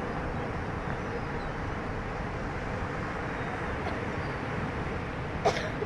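Boat engine running steadily under way. A brief sharp sound about five and a half seconds in.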